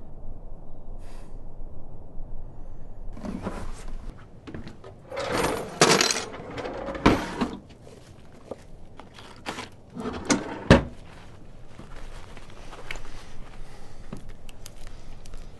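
A wooden drawer being opened and rummaged through, with rustling as disposable gloves are pulled from their cardboard box and a few sharp knocks.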